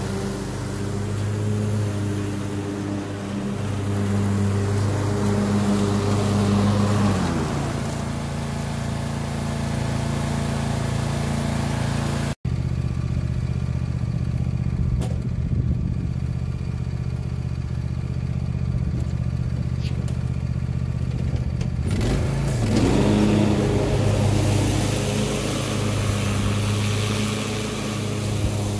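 Craftsman Z6000 zero-turn mower's engine running steadily while mowing, its pitch dropping about seven seconds in and rising again about twenty-two seconds in as it comes back near. The sound cuts out for an instant about twelve seconds in.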